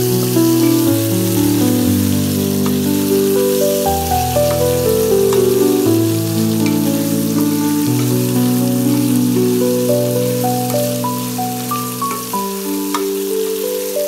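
Background instrumental music of slow held notes over the steady sizzle of eggplant and potato pieces frying in oil in a pan, with a few light clicks as they are stirred.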